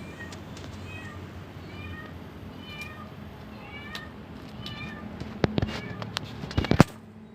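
Short high chirping animal calls repeated every second or so over a steady low hum, then a quick cluster of sharp clicks and knocks about five and a half to seven seconds in.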